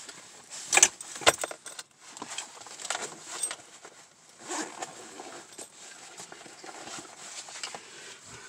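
Fabric shoulder holster and its strap buckles being handled: rustling and shuffling, with two sharp clicks about a second in.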